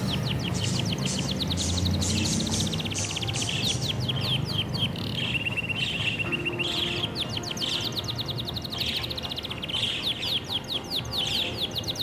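Budgies warbling to each other in courtship: a fast, continuous chatter of short chirps, with a steady held whistle near the middle.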